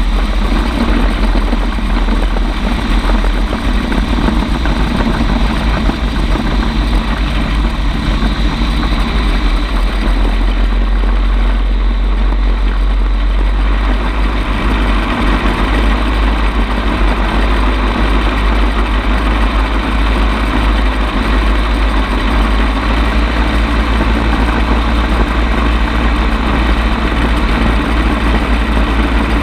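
Bensen B-7M gyrocopter in flight, its engine and propeller running steadily, with wind buffeting the onboard microphone.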